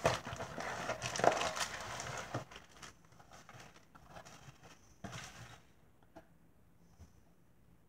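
Cardboard box being opened and its contents pulled out, with cardboard and plastic packaging scraping and rustling for the first two seconds or so and a sharp tap about a second in. Then quieter handling follows, with a brief rustle near the end and a couple of small clicks.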